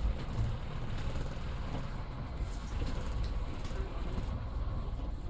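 Diesel engine of a BMMO D9 double-decker bus running steadily as the bus moves slowly, heard from the front of the bus.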